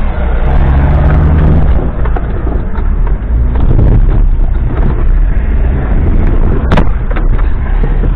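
Off-road vehicle's engine running loudly under load, heard from inside the cab as it drives over rough ground, with one sharp knock near the end.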